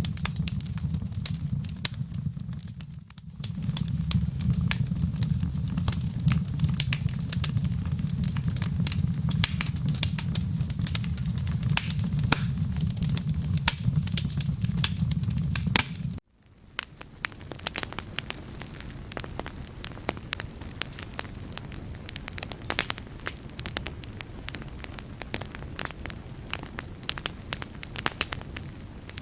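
Wood fire crackling with dense small pops over a low, steady rumble. About halfway through, the sound cuts out for an instant and returns quieter, the rumble much reduced and the crackling going on.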